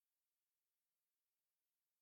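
Silence: the audio track is essentially empty, only a faint digital noise floor.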